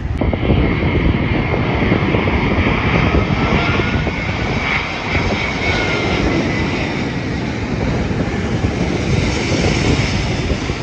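Airbus A380 on final approach, its four Rolls-Royce Trent 900 turbofans running at approach power: a loud, steady jet rumble with a high whine over it.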